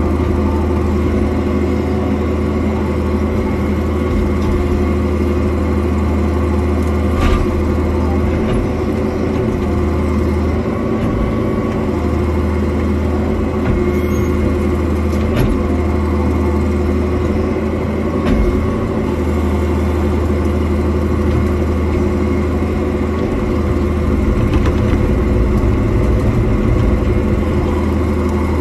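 Cat 305.5 mini excavator's diesel engine running steadily under working load, heard from the operator's seat, with a few short knocks as the bucket works through brush.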